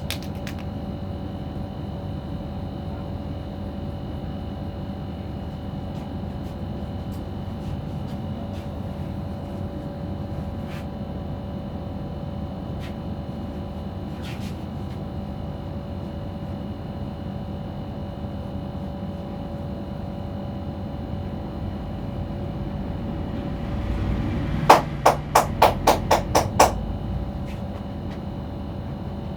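Steady background hum with a few faint clicks from massage handling. A little over 24 seconds in comes a quick run of about seven sharp taps, about three a second: percussive tapping strokes of a head massage.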